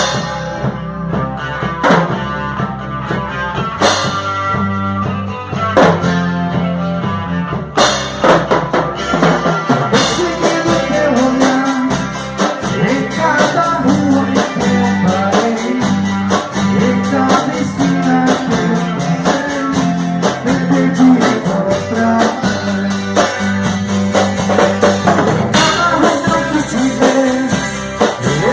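Instrumental intro of a pop-rock song: electric guitar with bass, then the full band with drum kit comes in about eight seconds in and plays steadily.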